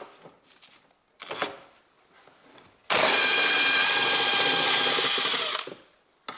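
A cordless power tool spins a socket on a long extension to unscrew the central bolt of a Toyota Prius's right engine mount. It starts abruptly, runs at a steady speed for nearly three seconds, then winds down, after a few faint handling knocks.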